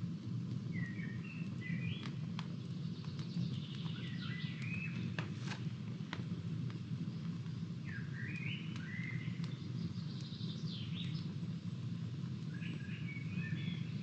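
A campfire of dry sticks crackling and popping in sharp, irregular snaps over a steady low rush. A songbird sings short phrases about every two to three seconds.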